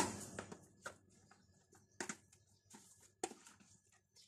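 Metal spoon stirring chunks of chicken in yogurt marinade in a plastic tub: a few faint, irregular clicks and scrapes of the spoon against the container.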